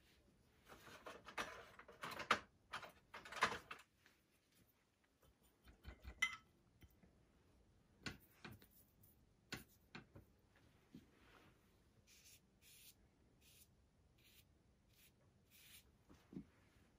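Mostly quiet room with scattered small clicks and clinks as brushes and ceramic ink dishes are handled on the painting table, and a few seconds of rustling about a second in. Near the end come a series of short soft swishes of an ink brush stroking on paper.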